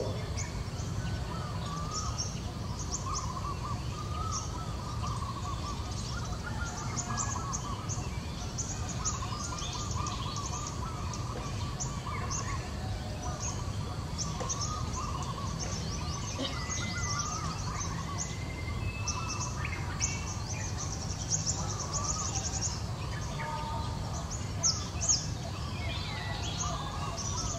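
Outdoor ambience of birds chirping and calling continuously, with quick high chirps over a low steady rumble. There are a couple of short sharp clicks near the end.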